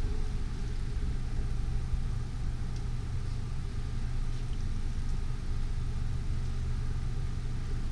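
Steady low mechanical hum, with a few faint light taps of a metal spatula against the skillet around the middle.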